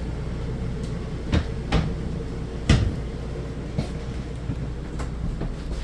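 Cabinet doors being opened and shut: a handful of separate knocks and clicks, the loudest a little under three seconds in, over a steady low hum.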